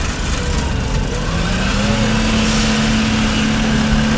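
An engine running, its pitch rising about a second in and then holding steady at higher speed.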